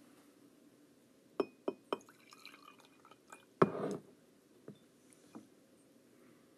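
A drinking glass of water being handled: three quick ringing glass clinks about a second and a half in, a few fainter clinks, then a louder knock against the lectern about halfway through, followed by two light taps.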